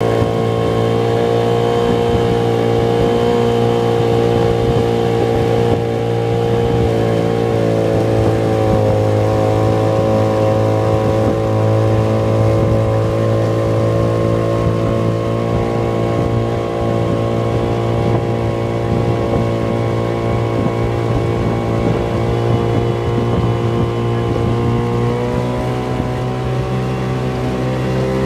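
Outboard motor of a coaching launch running steadily, a continuous engine hum whose pitch wavers slightly and rises near the end as the launch speeds up.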